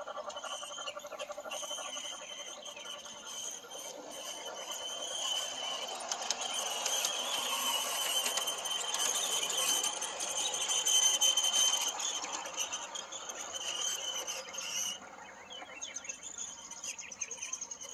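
Large-scale garden model train, a Santa Fe diesel locomotive hauling freight cars, rolling past on outdoor track. Its wheels and motor grow louder as it comes close, with a steady high-pitched whine over them that drops away about fifteen seconds in.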